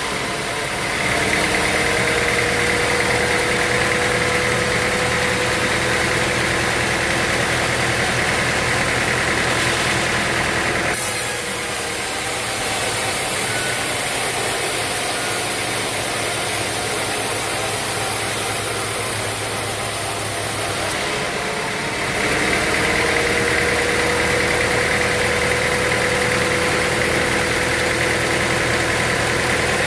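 A sawmill's engine running steadily. Its sound changes about eleven seconds in and again about twenty-two seconds in.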